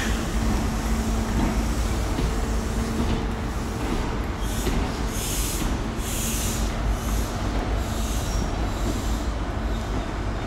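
A GWR 'Castle' HST set with Class 43 diesel power cars pulls slowly out of the station: a steady diesel rumble and hum, with a run of short high squeals from the wheels on the track about halfway through.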